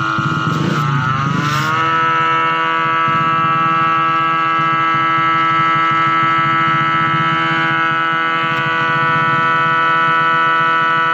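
Belt-driven AMR 500 supercharger blower and its 1 hp three-phase induction motor running on an inverter, giving a loud whine of several steady tones over a low rumble. In the first two seconds the pitch rises as the inverter brings the speed up to 45 Hz, then it holds steady.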